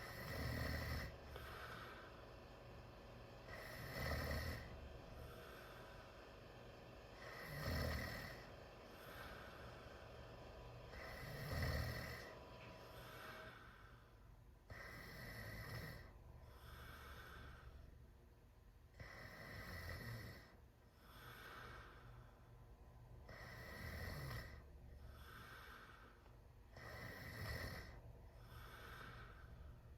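A teenager snoring loudly with the mouth wide open. The breathing cycle repeats about every four seconds, each cycle a louder snore followed by a softer one.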